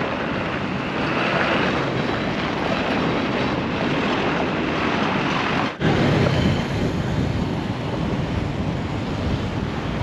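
Steady rushing noise of wind buffeting the microphone over road traffic, with a brief drop-out just under six seconds in.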